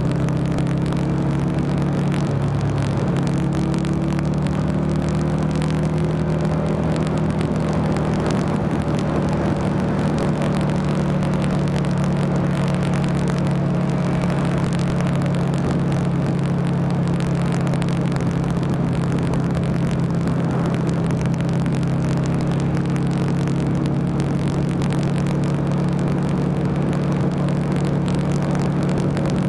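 Buell XB9SX's 984 cc air-cooled V-twin engine running steadily at highway cruising speed, with the revs shifting slightly near the start and again near the end.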